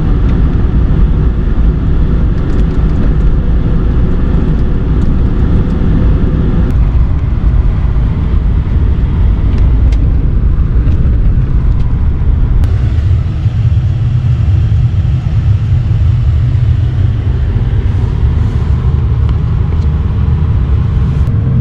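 Car driving, a steady low rumble of engine and road noise that shifts a little about seven seconds in.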